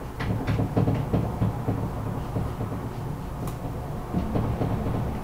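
Marker tapping and scraping on a whiteboard in short strokes as an equation is written, with a cluster of quick clicks in the first second and a half and a few more later, over a steady low hum.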